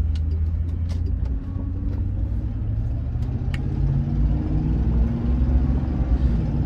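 A car engine runs with road noise from inside the cabin while driving, a steady low hum. A few faint clicks sound over it.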